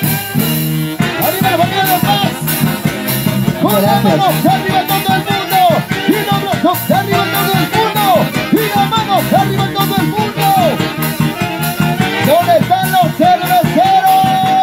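Live Peruvian orchestra playing a huayno: saxophones and clarinets carry a wavering melody over a drum kit's steady beat, with trumpets in the band.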